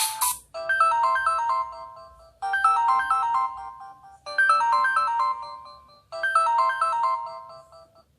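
Samsung Gravity 2 (SGH-T469) ringtone playing: a short melody of quick notes stepping down over a held low note, repeated four times about every two seconds.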